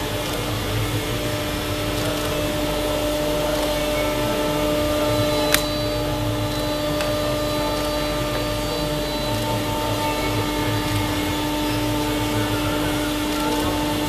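Steady hum of a running machine in a workshop, with a fixed low tone and a constant rush like an extractor or blower. A single sharp click comes about five and a half seconds in.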